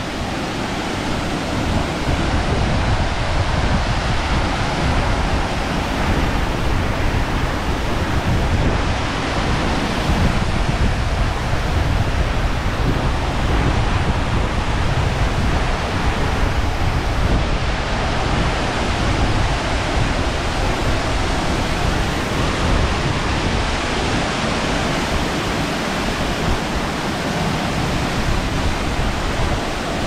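Steady rushing roar of Khandadhar waterfall, a 244 m drop, heard up close as an unbroken wall of water noise. A rumble of wind buffets the microphone underneath.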